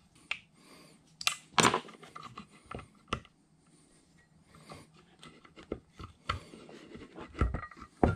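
Irregular clicks and clinks of metal hand tools being handled: T-handle hex keys taken up from the workbench and a hex key worked on the milling head's high-low speed change handle. The loudest clicks come about one and a half seconds in and near the end.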